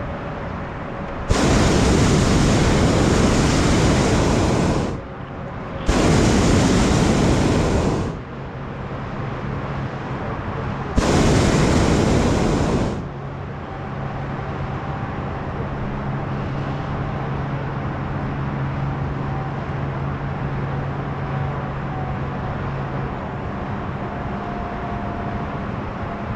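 Hot air balloon's propane burner firing in three blasts that start abruptly, the first about a second in and the longest at nearly four seconds, the other two about two seconds each, the last ending about halfway through. A steady, quieter low hum fills the gaps and the rest.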